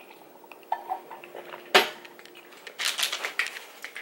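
Clinks and knocks of small hard objects being handled, with one sharp knock a bit under two seconds in and a short run of clicks near the end.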